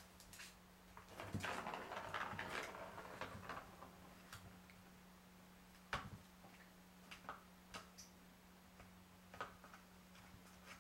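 Kitten pawing at a plastic figure-eight circuit track cat toy: a couple of seconds of rattling and clicking as the ball runs in the track, then scattered single clicks and taps, the sharpest about six seconds in.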